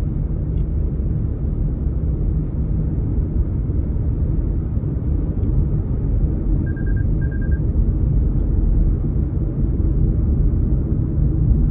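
Steady low rumble of tyre and engine noise inside a car's cabin while driving along a paved highway. Two short bursts of quick high beeps a little past the middle.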